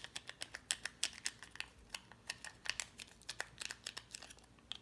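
Small foil sachet crinkling and crackling in the fingers as it is squeezed and shaken out over a plastic cup: a quick, irregular run of little crackles that stops near the end.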